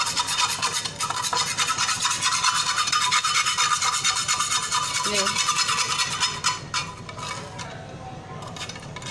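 A knife blade scraping burnt carbon, softened by an hour under baking soda and vinegar, off a tawa griddle in rapid back-and-forth strokes. The scraping eases off about two-thirds of the way through, then picks up again near the end.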